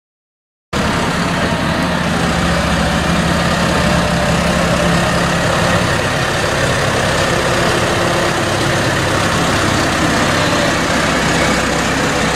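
A tractor's diesel engine running steadily at low revs, heard from under a second in, as the tractor reverses a slurry tanker up to a suction-hose coupling.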